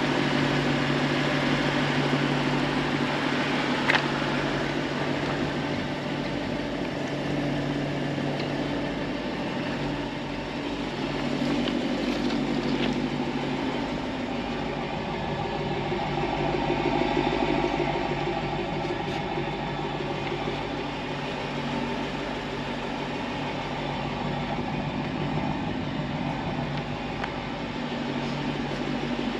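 Lexus LC500's 5.0-litre V8 idling steadily, with one short click about four seconds in.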